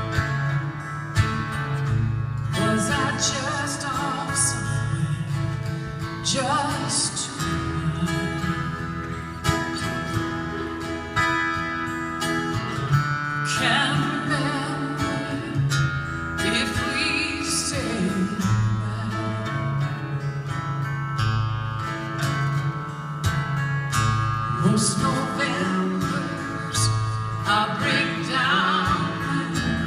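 A woman singing live in phrases over two strummed acoustic guitars.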